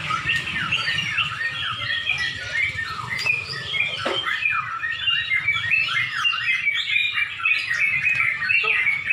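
Many yellow-vented bulbuls (trucukan) singing at once: a dense chorus of overlapping quick, warbling phrases.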